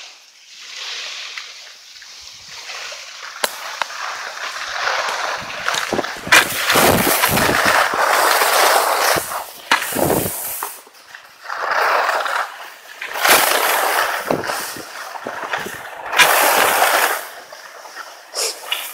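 Skis scraping and hissing over packed snow on a downhill run, swelling and fading in surges with each turn.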